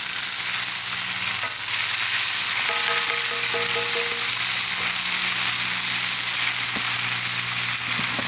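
Pigeon stew of tomatoes, onions and peppers sizzling steadily in a pot over a wood fire, stirred with a wooden spoon.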